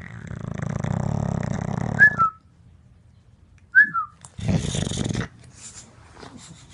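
Bulldog snoring in its sleep. A long snore of about two seconds ends in a short high whistle, a second whistle follows on its own, and then comes a shorter snore.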